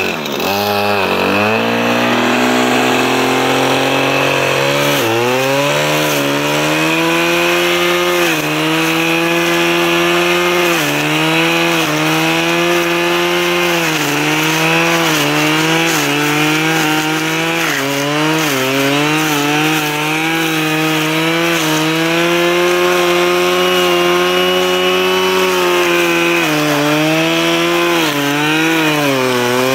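Husqvarna 535 RJ brushcutter's two-stroke engine running at high revs. Its pitch dips and recovers every second or two as the flail blade bogs down cutting into brush.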